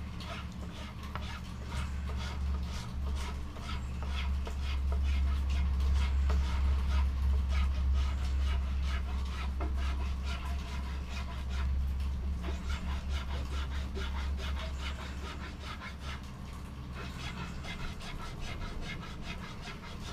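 Hand file rasping back and forth over a soft aspen walking stick in quick, uneven strokes, over a loud low steady hum that swells in the middle.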